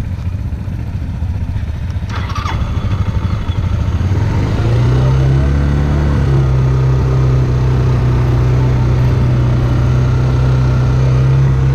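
Suzuki GZ250 single-cylinder motorcycle engine idling, heard from the saddle; about five seconds in it grows louder and settles into a steady, even note. A brief clatter sounds about two seconds in.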